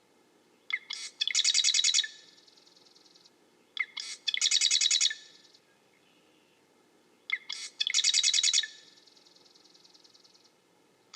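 Marsh wren singing three times: each song opens with a few sharp introductory notes and runs into a rapid, rattling trill about a second long.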